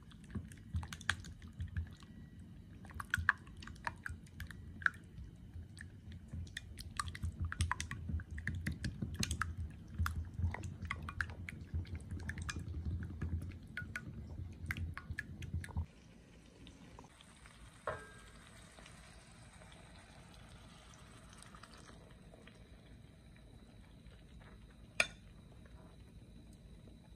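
Silicone spatula stirring a wet mix of tuna, egg and spices in a glass bowl: squishing with many light clicks and taps against the glass for about sixteen seconds. Then it goes much quieter, with a single sharp click near the end.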